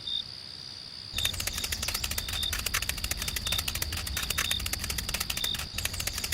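A small geared mechanism clicking rapidly and steadily, about ten clicks a second, over a low hum, starting about a second in.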